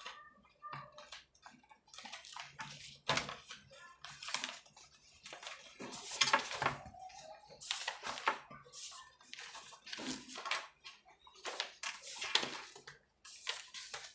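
A thick stack of paper sheets being leafed through by hand, the pages rustling and flapping in a string of short swishes, starting about two seconds in.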